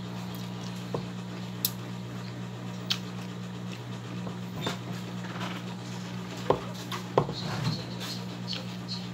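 Metal spoon and fork clinking and scraping against an enamel plate while eating, in scattered sharp clicks, two louder ones about six and a half and seven seconds in. A steady low hum runs underneath.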